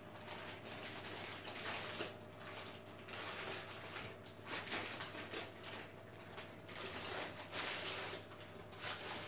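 Faint eating sounds: a hand mixing rice and fried squid on a plate and chewing, coming as short irregular rustles about every second, over a low steady hum.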